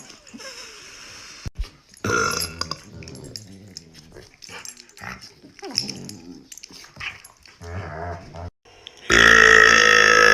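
A woman's long, deep burp starts about nine seconds in and is the loudest sound, running on past the end. Before it come softer, scattered short sounds.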